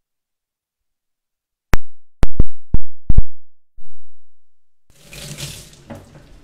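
Six loud, sharp knocks within about a second and a half, then a single duller knock, followed by a stretch of even hissing noise.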